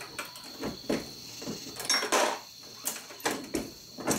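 Dillon RL 550B progressive reloading press being worked while loading .45 ACP: a series of sharp metallic clacks and clunks from the handle stroke, the ram and the shell plate being indexed, the loudest about halfway through.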